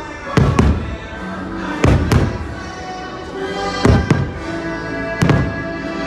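Fireworks shells bursting in sharp booms, seven in all, mostly in pairs: about half a second in, two seconds in, four seconds in, and once more past five seconds. Loud orchestral show music plays throughout.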